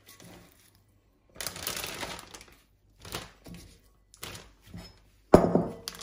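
Raw chicken pieces handled and dropped into a plastic zip-top bag: the bag crinkles and rustles in a few short bursts. A sudden loud knock with a brief ring comes near the end.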